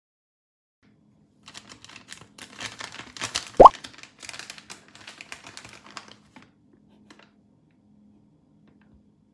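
Crinkling packaging and small clicks for about five seconds, with one loud, short plop rising in pitch about three and a half seconds in.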